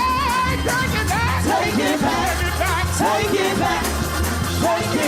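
Church praise music: a solo voice sliding up and down in pitch over a band with a steady, heavy bass line.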